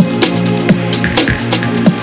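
Electronic background music with a steady beat: a regular kick drum and ticking hi-hats over held bass notes.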